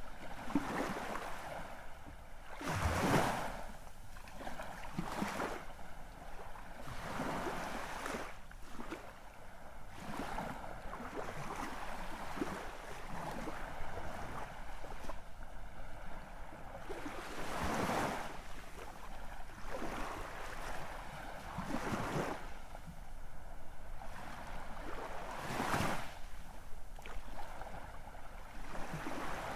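Sea waves breaking and washing in, swelling in irregular surges every few seconds over a steady rush of surf. The loudest break comes about three seconds in.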